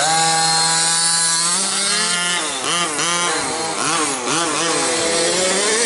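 Small two-stroke petrol engines of 1/5-scale RC race cars running at high revs. The pitch holds for about two seconds, then rises and dips several times as the throttle is worked.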